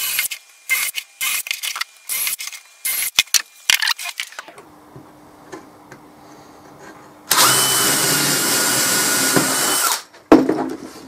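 Irregular scraping and knocking handling sounds, then a power drill with a 6 mm bit running steadily for about three seconds with a high whine as it bores a clearance hole through CLS timber, followed by a sharp knock.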